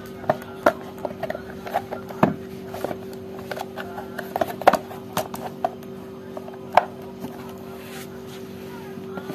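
Irregular plastic clicks and knocks as a blender's plastic motor housing is handled and turned over on a workbench, over a steady low hum.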